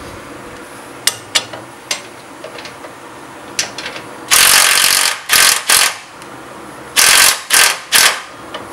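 DeWalt cordless impact driver with a socket hammering on a suspension bolt in two sets of bursts, a long burst followed by two short ones each time, the first a little over four seconds in and the second about seven seconds in. This is the bolt being broken loose. Light clicks of the tool being handled come before.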